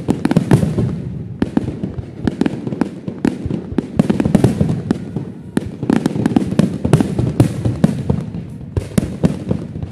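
Fireworks display: aerial shells bursting in quick, irregular succession, many sharp bangs and crackles over a continuous low rumble.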